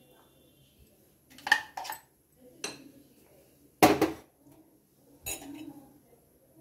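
A spoon knocking and scraping against a nonstick frying pan while stirring milk: about five sharp clinks, the loudest about four seconds in.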